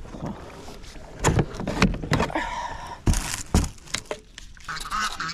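Hollow knocks and clunks of a plastic sit-in kayak and its paddle being handled at the water's edge, with a scraping stretch about three seconds in, as the kayak is boarded and pushed off.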